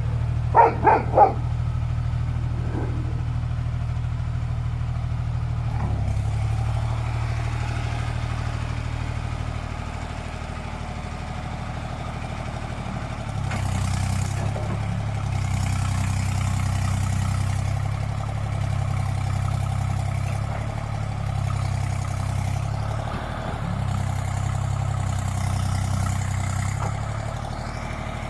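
Excavator's diesel engine running steadily throughout, growing louder about halfway through and then swelling and easing as it works. Three quick dog barks sound right at the start.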